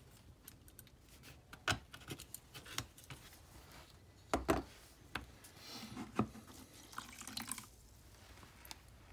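Leather pieces and a small metal hand tool being handled and set down on a plastic cutting board: scattered knocks and clicks, the loudest a pair about four and a half seconds in, with some brief rubbing of leather.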